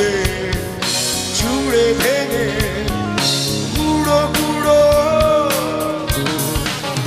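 A live band playing a song: a vocalist singing over electric guitars and a drum kit with steady drum hits.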